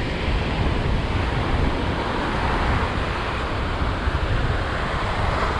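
Steady wind buffeting the microphone over a continuous wash of ocean surf.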